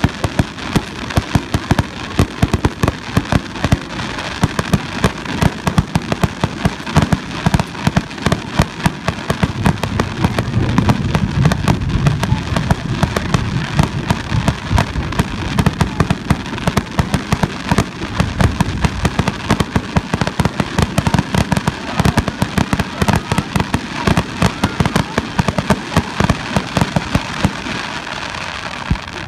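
Aerial fireworks bursting overhead with dense, continuous crackling, and heavier booms about ten to thirteen seconds in.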